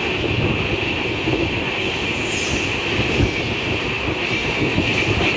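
Running noise of an LHB-coach express train at speed, heard from an open coach doorway: a steady rumble and hiss of wheels on rail, as it runs close alongside the wagons of a freight train on the next track.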